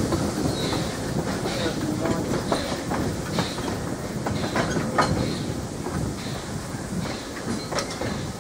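Vintage railway passenger carriages rolling past, their wheels clicking over rail joints, the sound easing off slowly as the train draws away near the end.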